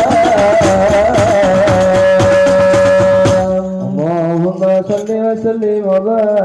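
Male voices singing an Arabic devotional song to rebana frame drums, ending on a long held note about three seconds in, where the drumming stops. A single male voice then chants on alone with a wavering, ornamented melody.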